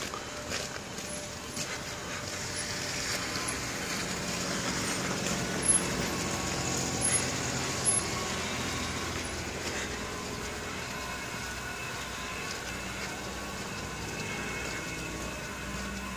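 A motor vehicle running nearby: a steady engine hum with road noise, swelling over the first few seconds and again near the end. A few short clicks stand out about six to eight seconds in.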